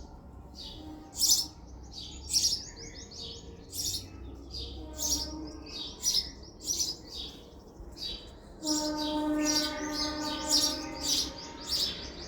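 House sparrow chirping: short, sharp chirps repeated at uneven intervals. About two-thirds of the way in, a steady horn-like tone starts underneath and holds.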